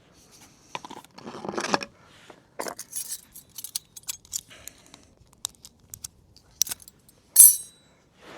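Cutlery clinking and scraping against camping cookware as the food is served and eaten: a run of small clicks and scrapes, with one loud, bright metallic clink that rings briefly near the end.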